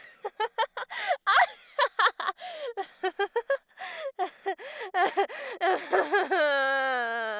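A woman laughing hard in quick, gasping bursts. Near the end it turns into one long, drawn-out note that slides slowly down in pitch, an odd laugh.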